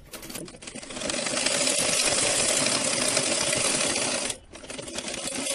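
Black domestic sewing machine stitching a seam through padded, layered fabric. It runs up to speed within the first second, stops briefly a little past four seconds, then starts stitching again.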